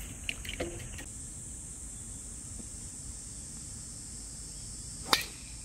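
A golf club strikes the ball once, a single sharp crack about five seconds in: the tee shot on a par-5 hole. A steady high-pitched drone runs underneath.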